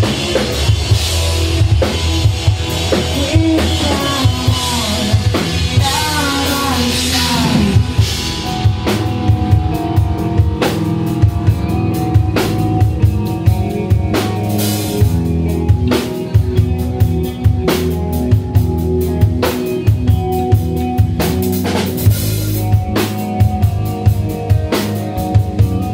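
Live rock band playing an instrumental passage: a drum kit beating steadily with bass drum and snare under electric bass and electric guitar. Sliding notes fill the first several seconds, then the drums come to the fore.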